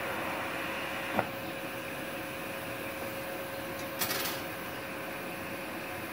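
Multipro MIG-MMA/TIG 160 inverter welder at 50 amps: the welding arc runs with a steady hiss over a constant hum and stops with a sharp crack about a second in. The hum carries on, with a brief hiss about four seconds in.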